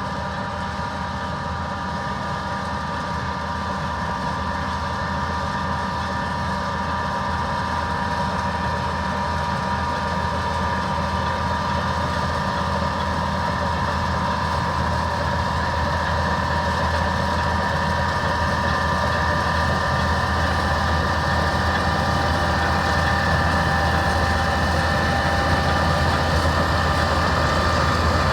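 Heavy diesel engine running steadily, with several steady high whines over its low hum, slowly growing louder.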